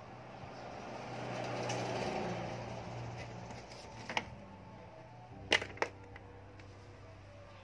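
Small sharp metallic clicks of spinning-reel parts being handled and fitted by hand: one about four seconds in, then two in quick succession a moment later. Before them a vehicle passing by swells and fades, over a steady low hum.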